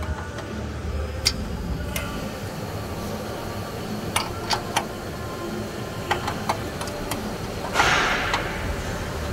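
Scattered clicks and taps of hands and tools working on the exhaust underside of a car at the downstream O2 sensor, over a steady low workshop rumble. A short hiss about eight seconds in is the loudest sound.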